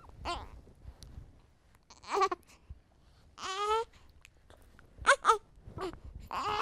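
Congested infant with a cold making short whimpering squeaks and whines between quiet breaths. There is a brief squeak about two seconds in, a longer wavering whine at about three and a half seconds, two quick squeaks around five seconds, and another longer whine starting near the end.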